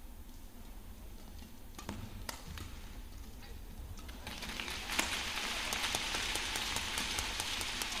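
Badminton rally: sharp racket strikes on the shuttlecock, spaced out at first. From about halfway, crowd noise swells into a steady din with many claps and strikes over it.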